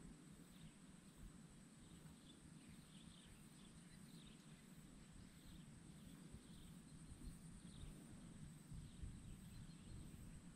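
Near silence: faint swamp ambience, a steady high whine with scattered soft chirps.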